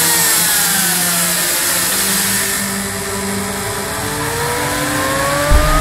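A motor's whine falls in pitch for about three seconds as it spins down, then rises again as it speeds back up, over a steady high hiss. A low rumble comes in suddenly just before the end.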